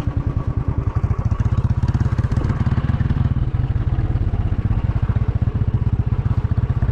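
An engine running steadily with a fast, even pulsing beat.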